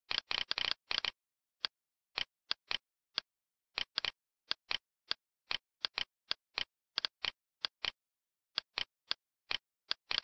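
Computer mouse clicking: short, sharp single clicks at an irregular pace, with a quick flurry of clicks at the start, as vertices and menu items are selected in 3D modelling software.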